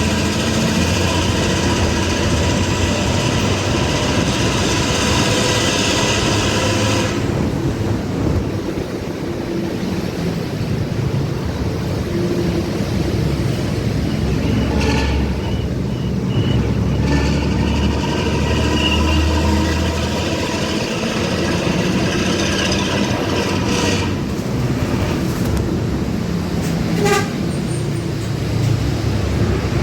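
Bus engine and racing exhaust droning steadily, heard from the rear seats. Long horn blasts sound over it: one held for about seven seconds at the start, shorter ones around the middle, and another lasting several seconds soon after.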